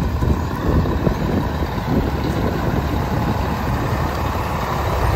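Scania coach's diesel engine idling steadily, a continuous low rumble heard close behind the bus's rear engine grille.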